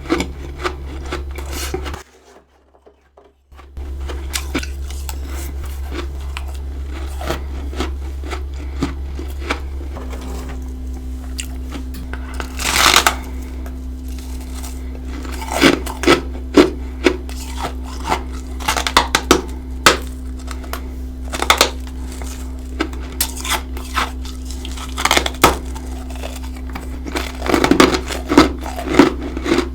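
Freezer frost being bitten and chewed close up, with irregular crisp crunches that come louder and more often in the second half. A steady low hum runs underneath, and the sound drops out briefly about two seconds in.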